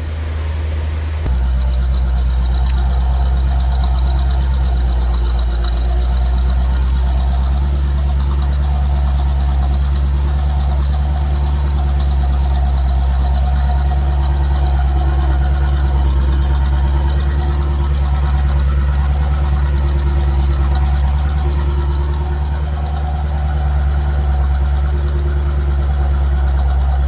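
C4 Corvette's 5.7-litre V8 idling steadily, running after the anti-theft starter interrupt relay was bypassed.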